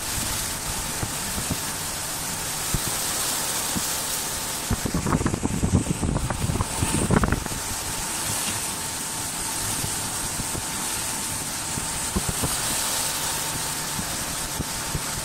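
Automatic wood lathe running as it turns a wooden handle: a steady hiss with a faint steady whine. About five to seven seconds in comes a stretch of louder, rougher noise as the tool or sanding pad works the spinning wood.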